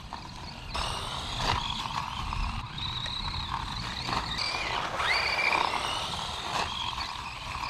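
Small 1/18-scale DEERC 9310 RC truck's electric motor whining up and down with the throttle, with a rising whine about five seconds in and a few knocks of the truck hitting the ground.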